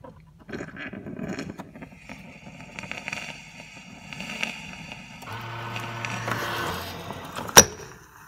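Krups EA8010 bean-to-cup espresso machine running a brew cycle with a freshly re-ringed brewing-unit piston: rattling and whirring mechanism for several seconds, then a steady low buzz for about a second and a half. A single sharp click near the end is the loudest sound.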